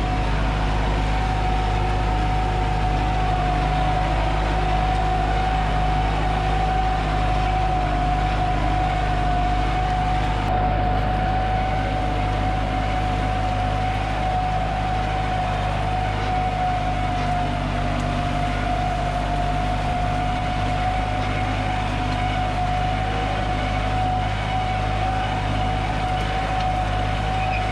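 Tractor engine running steadily at constant speed, heard from inside the cab with the window open: a low, even drone with a steady high whine over it.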